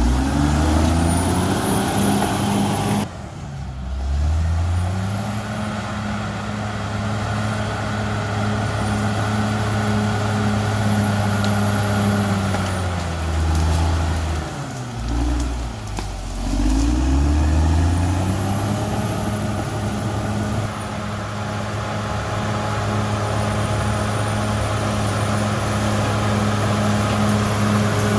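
Diesel engine of a Cat D6R XL bulldozer running under work, its pitch dropping sharply twice, about three seconds in and again around fifteen seconds in, then climbing back to a steady level each time. A faint high whine runs above it.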